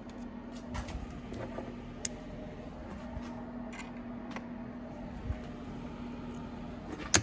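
Scattered light metallic clicks and clinks as clutch springs and small clutch parts are handled and set down in a metal parts tray, with two sharper clinks near the end. A steady low hum runs underneath.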